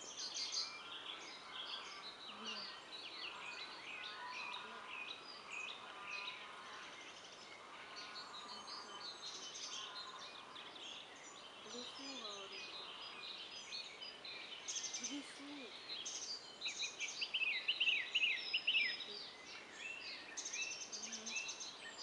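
Several songbirds singing at once in a wood, a dense mix of overlapping chirps and trills. The loudest stretch is a run of rapid falling notes about three-quarters of the way through.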